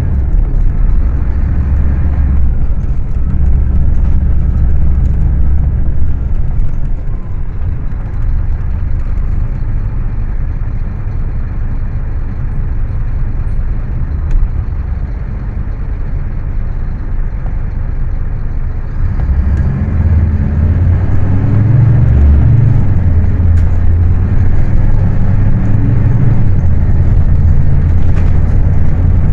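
Scania K310UA bus's five-cylinder diesel engine running with a strong low drone. It eases to a quieter run about seven seconds in and grows loud again about nineteen seconds in, its pitch shifting as it pulls.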